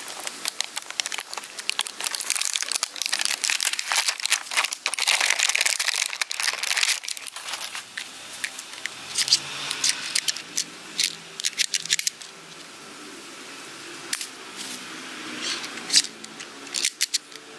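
Plastic blister packaging of a toy revolver set crinkling and tearing as it is opened, with a dense run of crackling for the first several seconds. After that come sparser plastic clicks and handling noises as the suction-cup darts are taken out and one is fitted into the toy gun.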